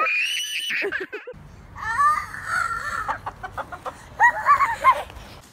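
A short high-pitched cry in the first second, then a chicken squawking and clucking. A cluster of its loudest squawks comes about four seconds in.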